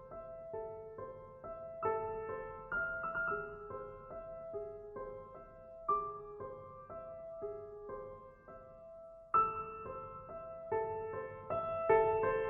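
Background piano music: a gentle melody of evenly paced single notes over soft chords, growing louder about three-quarters of the way through.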